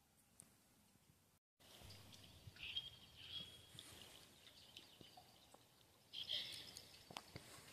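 Faint outdoor ambience with a few faint, high bird chirps in two short spells. The sound drops out completely for a moment about a second and a half in.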